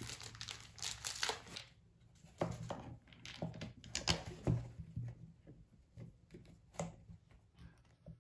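Handling noise from a plastic electrical plug-in receptacle and its parts being picked up and fitted together by hand: irregular light clicks and knocks with some crinkling.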